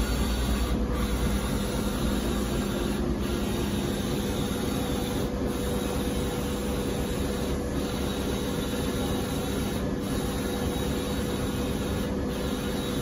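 Wide-format inkjet printer running a print on embossed wallpaper rolls: a steady mechanical hum and hiss as the print-head carriage sweeps back and forth across the roll, with a brief break in the sound about every two seconds.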